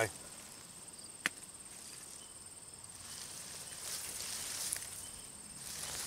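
A steady, high insect trill runs throughout, under soft rustling of soil, mulch and potato vines as potatoes are dug out by hand. One sharp click sounds just over a second in.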